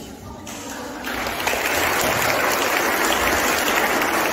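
Audience applauding, quiet at first and then swelling about a second in to steady clapping.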